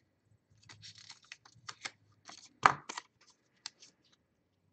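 Small handling noises at a desk: a quick, irregular run of rustles, scrapes and clicks, with one sharp knock about two and a half seconds in.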